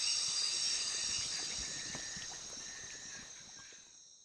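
Chorus of night insects, a steady high-pitched trilling of several voices at once, fading away to silence near the end.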